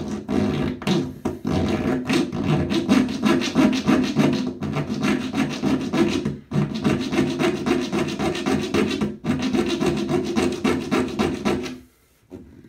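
Bare hacksaw blade held by hand, sawing a notch into the corroded metal centre of a bathtub drain flange: quick back-and-forth rasping strokes with a few brief pauses, stopping about a second before the end.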